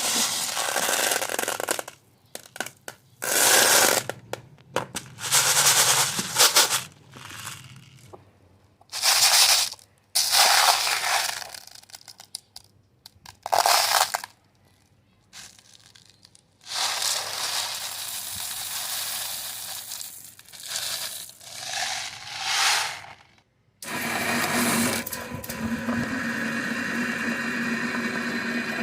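Meat grinder grinding mini fizzy balls in repeated loud, harsh bursts broken by short silences. About two-thirds of the way through, it settles into a steady motor run with a low hum.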